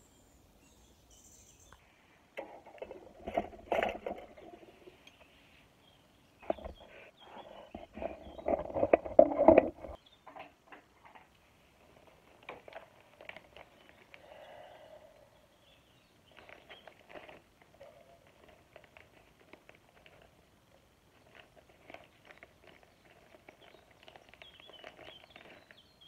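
Plastic bag crinkling and skewers clattering as chicken skewers are handled and laid into an oiled pan over a small camp stove. It comes as many short crackles and clicks, with two louder bursts in the first ten seconds and quieter scattered rustles after.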